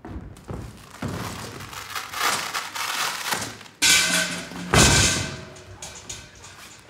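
Music with a run of thuds and thumps, the loudest about four and five seconds in, as a man's body crashes into the ropes and mat of a boxing ring.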